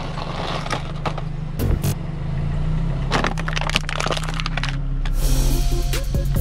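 Thin plastic face mask crackling and snapping under a car tyre as it is rolled over and flattened, with the car's engine humming low and steady underneath. Music comes in near the end.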